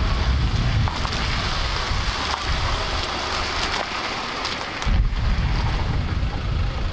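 Car tyres rolling slowly through puddles and wet mud, a steady wet hiss. Wind rumbles on the microphone in the first second and again from about five seconds in.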